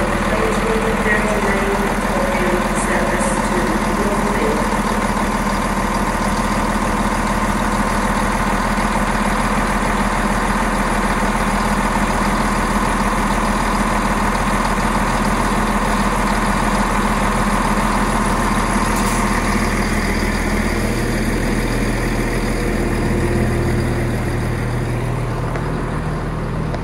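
Underfloor diesel engine of a Class 170 Turbostar idling steadily, an MTU six-cylinder turbocharged unit, heard close beside its turbocharger and exhaust. About twenty seconds in, the engine's note deepens.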